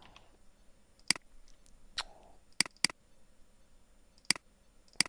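Computer mouse clicking: about six sharp single clicks at uneven intervals, two of them in quick succession near the middle.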